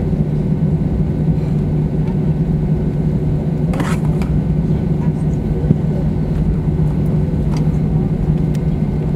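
Cabin noise of an Airbus A321 taxiing after landing: the jet engines at idle make a steady low hum with a fainter higher tone over it. A short hiss sounds about four seconds in.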